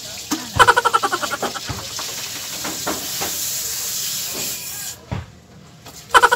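Water hissing and spraying from a kicked, broken PVC water pipe, cutting off suddenly about five seconds in. Twice, near the start and at the end, a voice breaks out in a loud, rapidly pulsing cry.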